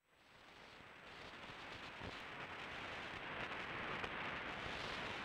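A dense, static-like hiss fading in from silence and swelling steadily, mostly in the upper middle range, with no clear pitch. It is an electronic noise texture made by running radio news recordings through guitar pedals and effects processors.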